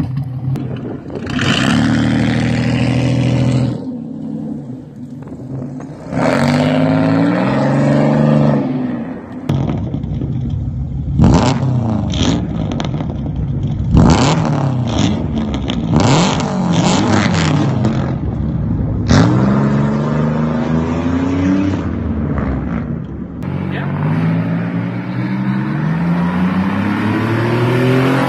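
Straight-piped 3.1-litre (3100) V6 of a 1995 Chevy Beretta Z26 revving hard several times, its pitch rising and falling with each rev. Through the middle comes a run of sharp cracks from the exhaust.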